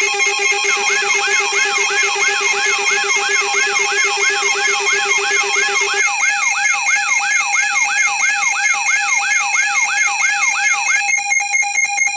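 Several electronic alarm tones layered together: steady pulsing tones at different pitches, with a yelping siren-like sweep repeating about two and a half times a second from about a second in until near the end. The lowest tone drops out about halfway through.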